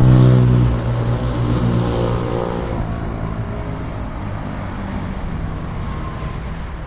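Boat engine running with a steady low drone, loudest in the first second and then settling to an even rumble.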